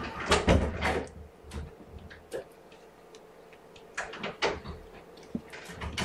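A run of knocks and clatters from a door being handled, bunched in the first second and again about four seconds in, over a faint steady hum.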